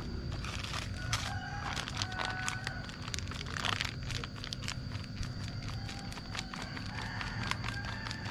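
Plastic bag of wheat flour crinkling as it is handled and tipped to pour flour into a plastic tray, a string of small irregular crackles.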